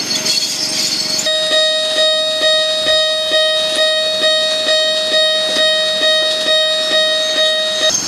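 Miniature railway crossing signal's warning bell ringing its steady 'kan-kan', about two even strikes a second on one pitch. In the first second it is mixed with the noise of a passing ride-on miniature train.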